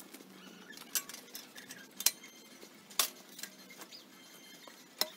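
Steel hand truck clanking as it is wheeled across grass and pushed up to a heavy iron swage block: a few sharp, ringing metallic clinks about a second apart.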